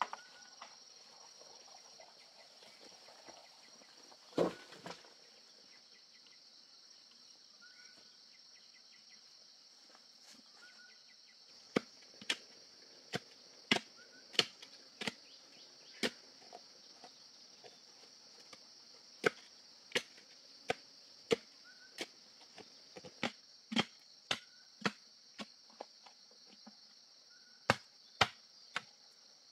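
Steady high drone of forest insects, with a single sharp knock about four seconds in, then a run of sharp knocks, roughly one or two a second, from about twelve seconds in to near the end: a long digging bar being driven into the soil.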